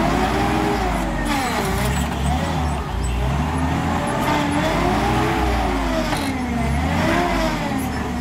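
Forklift engine and hydraulic pump revving up and down in repeated swells, about five times, while the mast hydraulics are worked to lift a load up into the rack.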